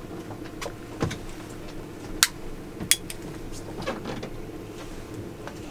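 A few sharp clicks of a lighter being struck as a pipe is lit, about one, two and three seconds in, over a steady low hum.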